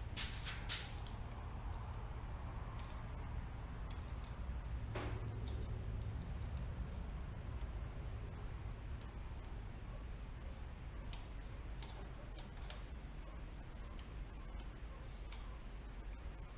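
A cricket chirping steadily, a little more than two chirps a second, over a low hum. There are a few faint clicks and a knock about five seconds in.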